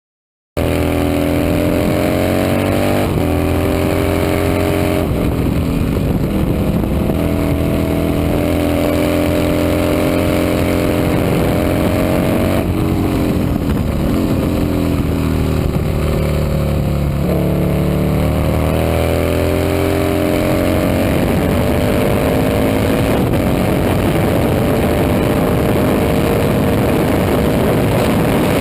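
Racing motorcycle engine at full throttle, revs climbing and dropping sharply at each gear change, with a couple of deeper dips as it slows and picks up again, then a long steady climb near the end.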